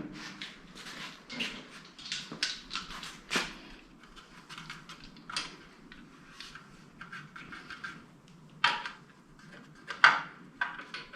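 A series of scattered knocks and clanks at uneven intervals, with two louder ones near the end.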